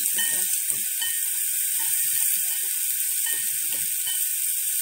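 Sliced shallots frying in hot oil in a pan, a steady sizzle.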